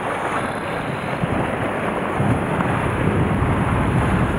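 Wind buffeting the microphone over sea surf washing against shoreline rocks, a steady rushing noise whose low rumble grows heavier about halfway through.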